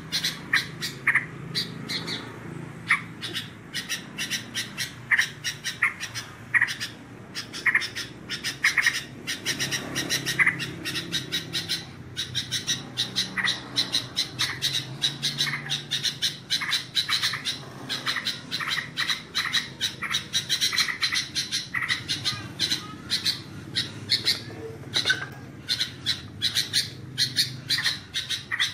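A trucukan bulbul singing and chattering: an unbroken run of short, sharp notes, several a second. It is a tutoring song played to make other trucukan birds sing.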